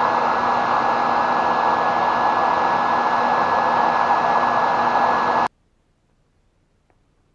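Hair dryer blowing on a plastic car undertray to warm it so it can be bent back into shape: a steady rush of air with a constant tone in it, switched off abruptly about five and a half seconds in.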